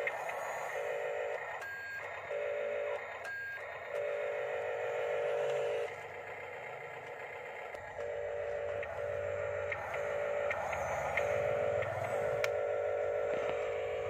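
Small electric motors of radio-controlled model construction vehicles whining in short on-and-off spurts as they are driven, with a lower hum joining about eight seconds in.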